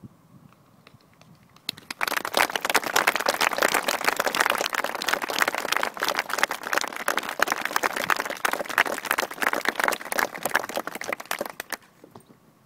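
Crowd of spectators applauding close by: a dense patter of hand claps that starts about two seconds in and dies away near the end.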